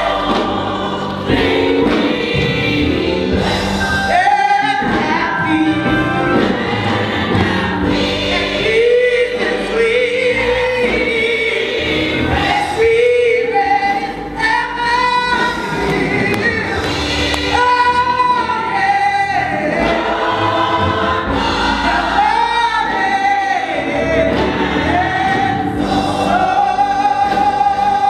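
Women's gospel choir singing a hymn together with a lead singer at the microphone, in long held notes.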